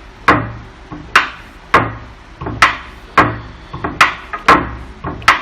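Hydraulic crimping tool working its pump stroke by stroke as its die set closes on a 50 mm² copper cable lug: a sharp click about twice a second, each followed by a short low hum.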